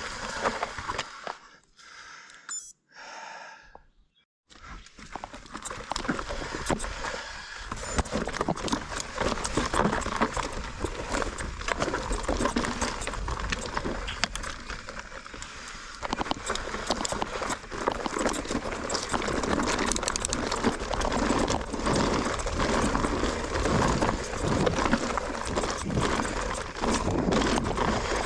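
Mountain bike being ridden over a rough, rocky trail: a steady rush of wind and tyre noise, crowded with small clattering knocks as the bike rattles over rocks.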